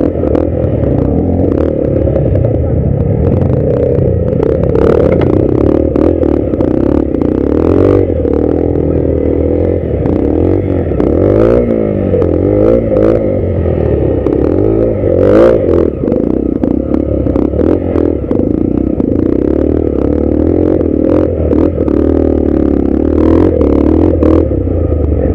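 Dirt bike engine revving up and down as the motorcycle labours over rocks, with frequent sharp knocks and clatter of stones and the bike's chassis.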